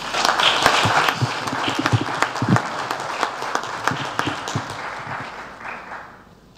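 Audience applauding, many hands clapping together, dying away about six seconds in.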